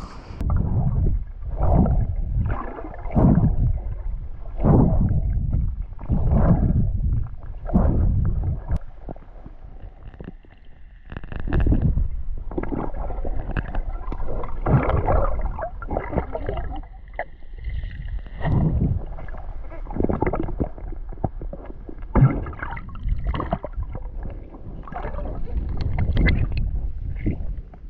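Water sloshing and gurgling around a waterproof action camera as a swimmer strokes through a pond and dips under the surface. Low, muffled surges of water come about every second and a half at first, then a rougher, more continuous churning with a few sharp splashes.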